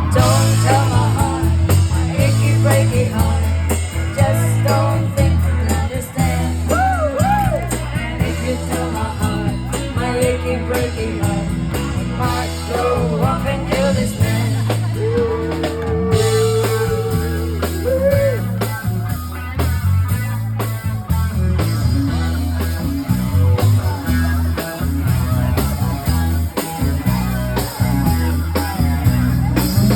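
Music with a singing voice over a steady bass and drum beat.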